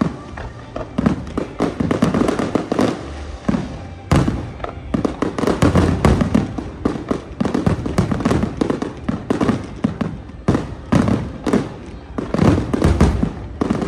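Aerial fireworks going off in a rapid barrage: a dense run of bangs and crackling bursts, several a second, loud throughout.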